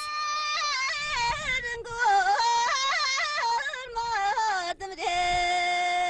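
Unaccompanied Tibetan Luhuo folk song in question-and-answer style, sung by one high solo voice. Its phrases fall in wavering ornaments with short breaks, then settle about five seconds in on a long held note.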